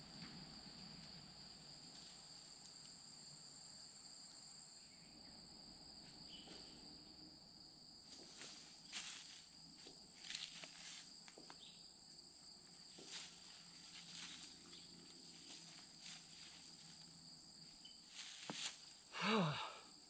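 Steady insect chorus in two high pitches, with scattered rustles and crackles of dry grass and leaf litter as a person crouches and moves over the forest floor from about halfway in. A short low vocal sound near the end is the loudest thing.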